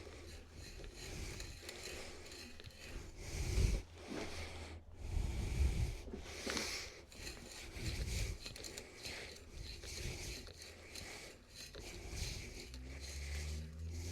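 Hand tools working wood: irregular rubbing and scraping strokes, with a few dull knocks.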